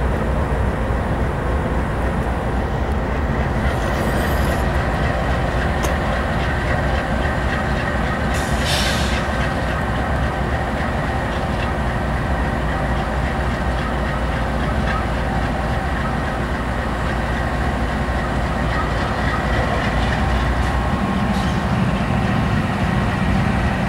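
Freight train with Union Pacific diesel locomotives rolling past: a steady rumble of wheels on rail with faint clicking, and a deeper engine drone coming in near the end.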